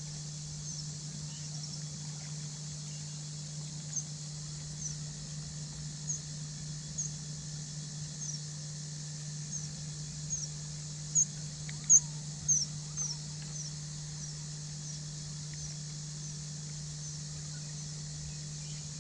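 A bird calling: a long series of short, high, falling chirps, about one every half second to second, loudest about eleven to thirteen seconds in and stopping a few seconds before the end. Under it runs a steady low hum with faint hiss.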